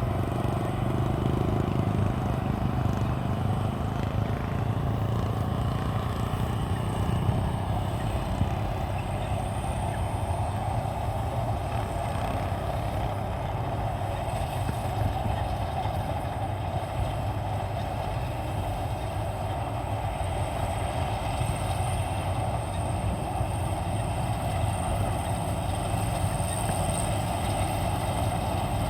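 Maxxi Bimo 102 combine harvester running steadily, an unbroken machine drone with a thin high whine on top.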